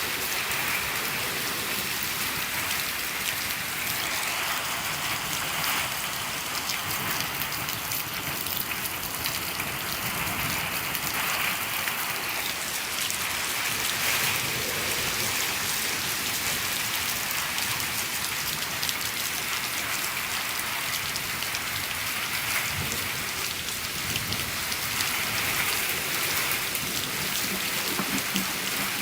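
Steady rain falling on a shed, heard from inside: an even hiss dense with fine drop ticks, holding level throughout.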